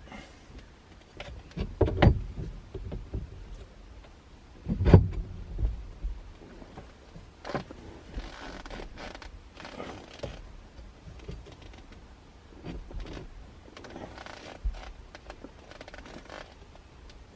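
Hand work fitting an aftermarket steering wheel onto its hub: scattered clicks and light knocks of metal parts, two heavier thumps early on, and bouts of rustling.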